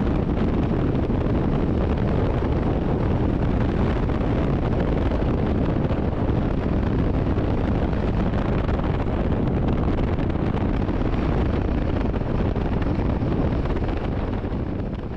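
Steady wind rush buffeting the microphone on a moving motorcycle, heavy in the low end with no clear engine note; it begins to fade out near the end.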